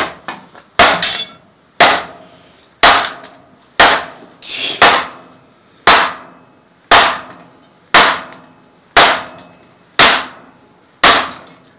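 Hammer striking a 2001 Mazda Tribute transmission case, a sharp metallic blow about once a second, a dozen times over, knocking a piece of the case loose.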